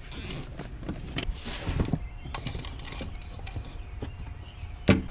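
Scattered light knocks, clicks and rustling from clear plastic vacuum hose being handled and fed through the firewall under a car's dashboard, with one sharper knock near the end.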